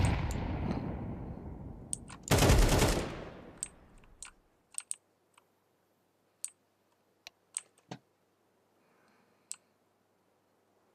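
A person snoring heavily: loud, rattling snore noise in the first few seconds, the loudest snore about two seconds in, then only scattered faint clicks.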